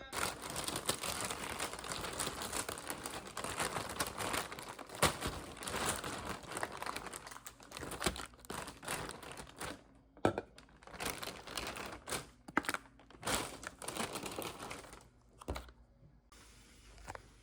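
Close crinkling and rustling of something being handled, dense for about ten seconds, then in short separate bursts before it stops near the end.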